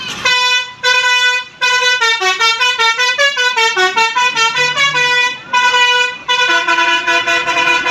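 Indonesian bus telolet horn of the Basuri type playing a tune. It sounds several pitched horn notes at once in a fast run of short notes, about four a second, that steps down in pitch and back up, then settles into longer held chords near the end.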